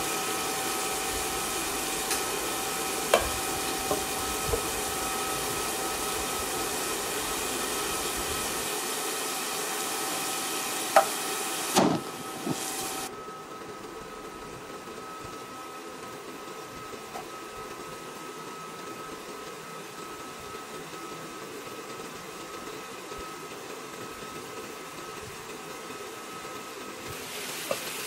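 Food sizzling and simmering in pans, a steady hiss with a faint high whine, and a spatula clicking against the pan a few times in the first half. About halfway through it drops to the quieter hiss of chayote cooking under a glass lid, which grows louder near the end as the lid comes off.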